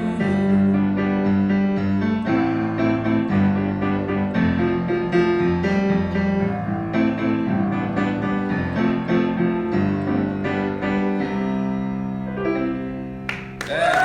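Live piano playing an instrumental passage of struck chords and melody, which slows and rings out near the end. Audience applause breaks in just as the last notes fade.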